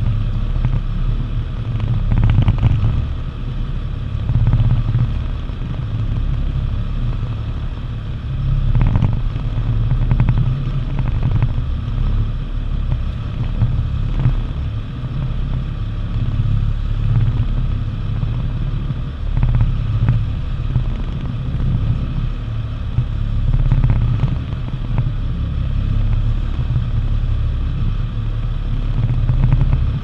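Low, steady rumble of a fishing boat under way, swelling and easing, with a few sharp knocks.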